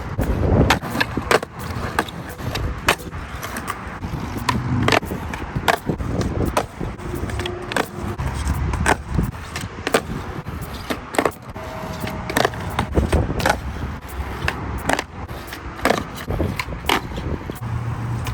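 Skateboard wheels rolling on pavement with a steady low rumble, broken by many sharp clacks and slaps of the board popping and landing during tricks such as kickflips.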